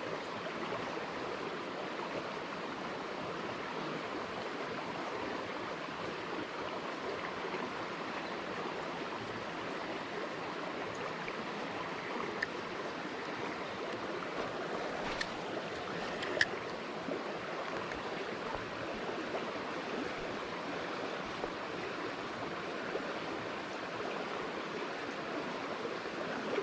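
Small river's current running steadily, with a few short clicks about halfway through.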